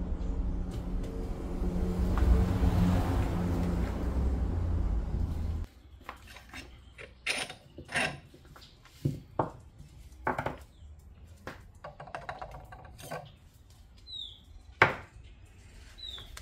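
A motor runs with a steady low rumble and cuts off abruptly about five and a half seconds in. After that come scattered metallic clinks and knocks of hand tools on car suspension parts, with a few short bird chirps near the end.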